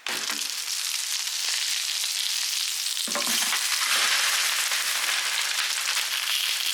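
Food sizzling in a hot pan, a steady hiss, with some lower sound joining about three seconds in.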